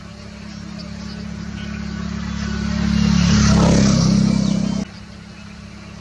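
A motor engine passing close, with a steady low hum that swells over about three and a half seconds and then cuts off abruptly about five seconds in.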